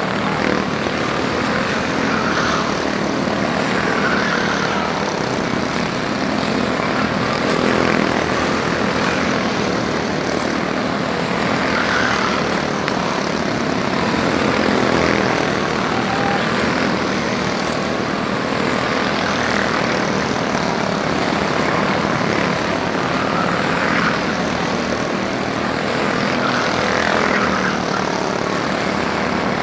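A field of Honda-engined quarter midget race cars running laps on a small oval, their small single-cylinder engines buzzing steadily together. The engine noise swells and fades every few seconds as cars go by.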